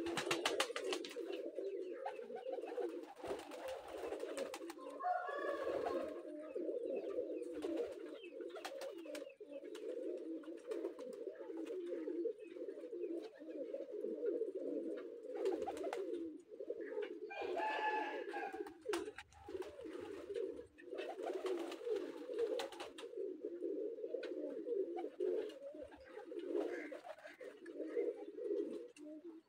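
A flock of domestic pigeons cooing continuously, many low coos overlapping, with scattered short clicks.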